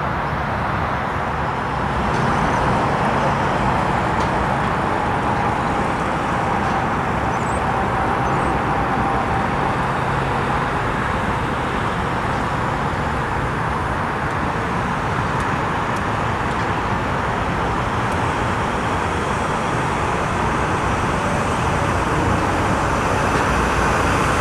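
Steady rumble of heavy truck and machinery engines mixed with road traffic, with a faint whine that sinks slightly in pitch a few seconds in.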